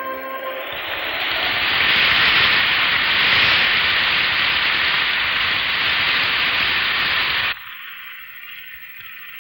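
Heavy rain falling in a steady hiss that swells in over the first second or two. Near the end it cuts suddenly to a quieter, thinner hiss of rain.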